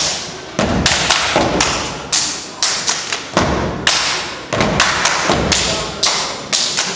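Step team stepping: foot stomps on a wooden stage with hand claps and body slaps, a quick, uneven rhythm of sharp hits, about three a second, each ringing briefly in the hall.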